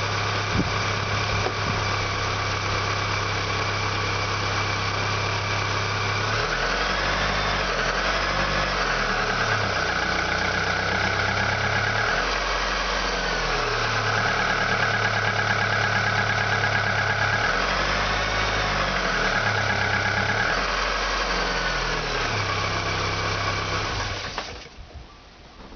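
Audi 80 engine running cold after a major overhaul: it idles steadily, then is revved up and down several times. It has a knock under load that shows only while the engine is cold. The engine sound drops away near the end.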